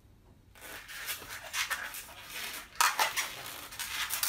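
Latex modelling balloon squeaking and rubbing under the fingers as it is pinched and twisted, starting about half a second in and loudest near the middle.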